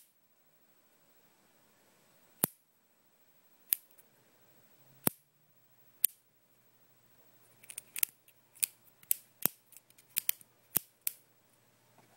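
Sharp taps of a finger on a computer screen: four single taps spaced a second or so apart, then a quicker, uneven run of about a dozen taps near the end, as if following the rhythm of the notes.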